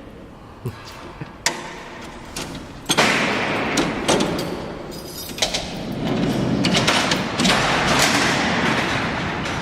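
Steel prison cell doors worked by a lever-and-clutch locking mechanism: a couple of sharp metal clanks, then a loud bang about three seconds in as the doors begin to roll. A long rumble of the sliding doors follows, with further clanks, and it grows louder again near the end.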